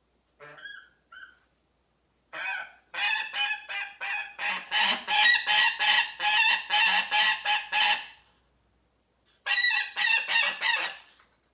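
Young gyrfalcon × Barbary falcon hybrid giving repeated honking calls of complaint: two faint short calls, then a loud run of about three calls a second for some five seconds, and a shorter run of about five calls near the end.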